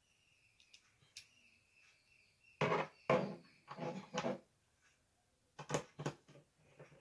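Handling clatter of small wall-mount parts and their plastic packet on the back of a flat-screen TV. A few loud knocks and scrapes come in the middle, and two sharp clicks follow near the end.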